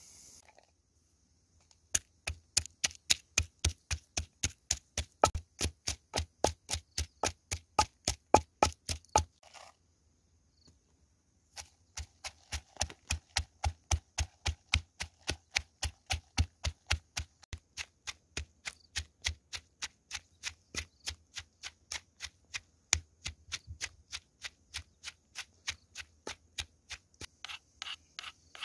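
Wooden pestle pounding fresh red and green chillies and garlic in a mortar. Quick, even thuds come about four a second, with a short pause of about two seconds near the middle.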